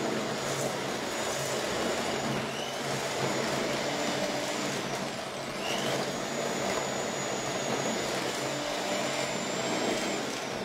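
Electric hand mixer running steadily, its beaters creaming butter and sugar in a stainless steel bowl, with a thin high motor whine over the steady mixing noise.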